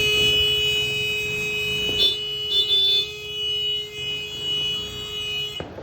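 A vehicle horn held in one long, steady blast. A second, slightly lower horn sounds with it for about a second, some two seconds in. An engine idles underneath for the first couple of seconds.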